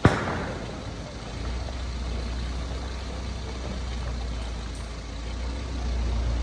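A single sharp knock at the very start, then a steady low vehicle engine rumble that sets in about a second and a half later and holds.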